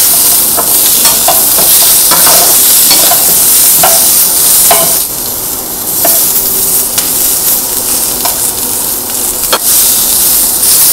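Sliced carrot, onion and bell pepper sizzling in hot oil in a metal frying pan as they are stir-fried, with the utensil clicking and scraping against the pan. The sizzle drops somewhat about halfway through.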